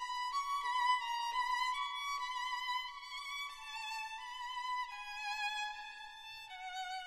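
Background music: a single violin playing a slow melody of held notes with vibrato.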